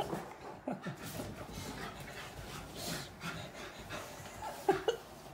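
A dog panting, with a brief whine near the end.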